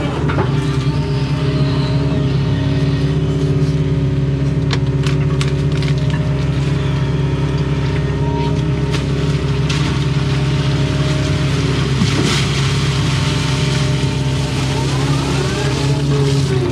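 Excavator's diesel engine running steadily as it digs, with a few short clicks about five seconds in.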